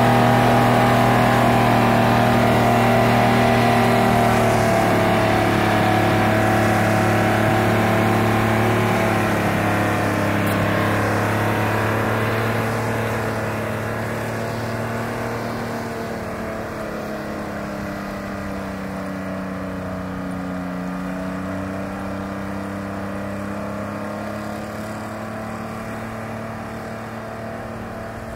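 Timberjack 208D skidder's engine running under load as it drags a hitch of logs away, fading steadily as the machine moves off. Its pitch sags slightly a few seconds in and again a little past the middle, then picks back up.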